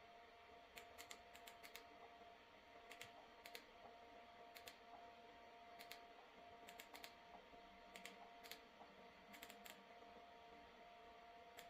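Faint, light clicks at irregular intervals, some single and some in quick runs of two or three, over a faint steady electrical hum.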